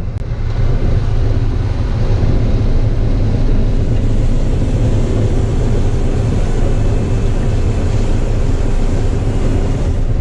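John Deere 9500 combine running: a steady, loud low rumble.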